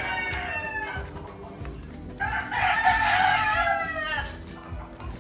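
Gamecock roosters crowing: one crow trails off at the start, and a second, louder crow begins about two seconds in and lasts about two seconds.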